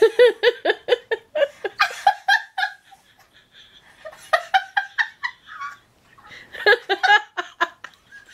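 A woman laughing hard in three fits of quick pulses, with short pauses between them.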